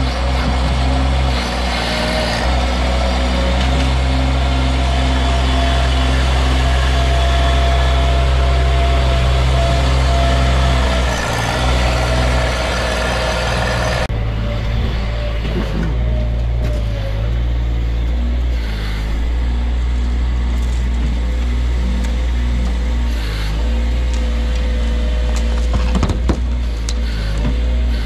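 Bobcat mini track loader's diesel engine running steadily under work as it carries and dumps dirt, with a steady whine over the low engine drone. The sound changes abruptly about halfway through, and there is a sharp knock near the end.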